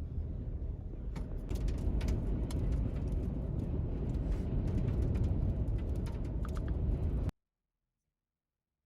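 Low rumbling road and wind noise of a moving vehicle, with scattered sharp clicks over it, cutting off suddenly about seven seconds in.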